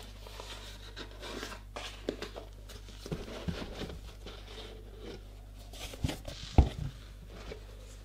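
A cardboard product box being handled and opened, its inner tray sliding out of the outer sleeve: scattered rubbing and scraping of cardboard, with one sharp knock about six and a half seconds in.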